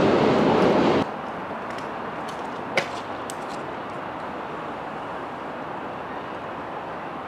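Noise of a passing train, loud for about a second, then cutting off suddenly. After that comes quieter steady background noise with a single sharp click.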